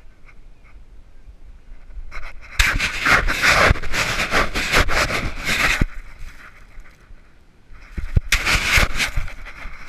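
Sand scraping and knocking against a dog-mounted GoPro camera housing, close to the microphone. A rough stretch of about three seconds comes a few seconds in, and a shorter one about a second long comes near the end.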